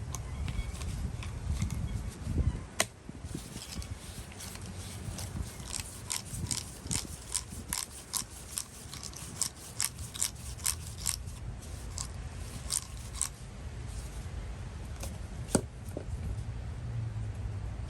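Vintage Duro Model 672 ratchet being oiled and worked back and forth, its pawl clicking in irregular runs, densest in the middle. The mechanism is caked with old grime, and dirty oil is working out of it.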